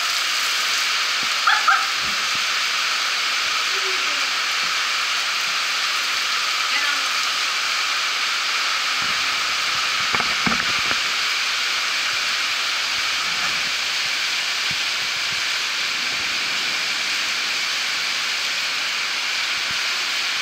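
Storm rain pouring steadily, an even hiss that does not let up, with a few brief low rumbles about halfway through.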